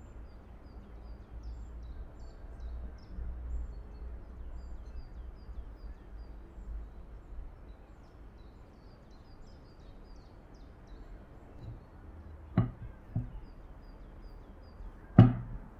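Quiet kitchen room tone with faint high chirps in the background, then three sharp knocks near the end as a glass mixing bowl of dough is handled on the countertop.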